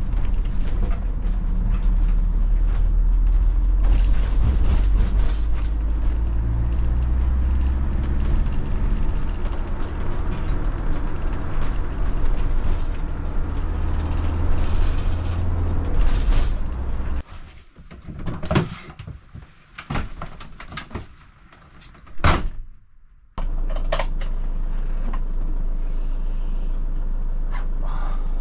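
Road and engine noise heard from inside a motorhome cab while driving: a steady low rumble that cuts off abruptly about 17 seconds in. A few sharp knocks and clicks follow, then a steady low hum starts about 23 seconds in.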